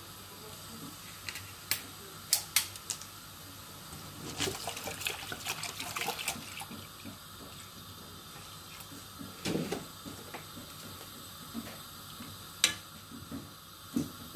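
Kitchen work: running liquid for about two seconds some four seconds in, amid a few sharp clicks and knocks of utensils.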